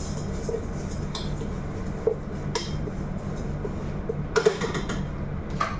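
Metal spoon clinking and scraping against a stainless steel stockpot while stirring vermicelli browning in oil. There are several sharp clinks, the loudest about four and a half seconds in, over a steady low hum.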